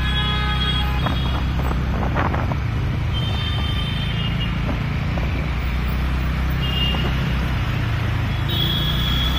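Steady low engine hum and road noise from a moving vehicle on a concrete road. A few brief high-pitched tones sound over it, near the start, around the middle and near the end.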